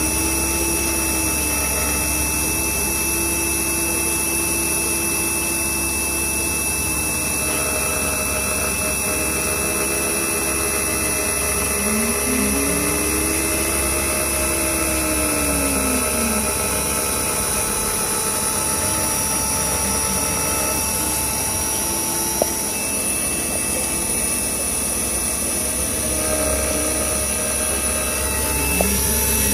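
CNC milling machine cutting a connecting rod under flood coolant: a steady high spindle whine and coolant spray, with a lower tone that glides up and down again and again as the axes move.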